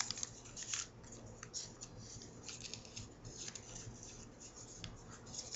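Faint rustling and crackling of a folded sheet of origami paper being handled and creased by hand, with scattered short crackles.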